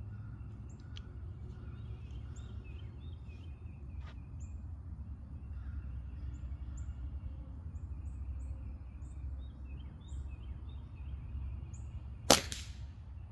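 A single shot from a .177 PCP air pistol, one sharp crack about twelve seconds in. It is the first shot of a string testing the gun's velocity after a port change. Small birds chirp faintly before it.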